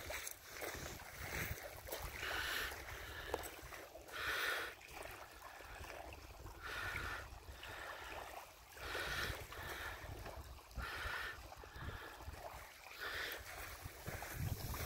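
Small ripples lapping onto a pebble shore, a soft wash every couple of seconds, over a steady low rumble of wind on the microphone.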